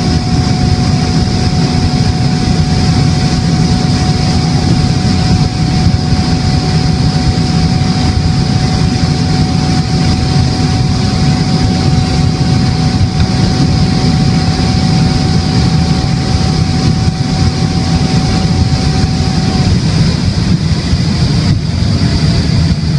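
Ferrari F12berlinetta's V12 running at a steady high speed: a loud, unchanging drone mixed with a rush of noise, with no rise or fall in revs. A thin steady whine above it stops about three quarters of the way through.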